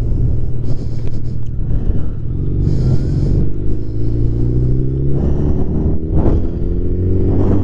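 Suzuki Hayabusa's inline-four engine running under way over a low rumble of wind and road, its pitch rising slowly through the second half as the bike gathers speed.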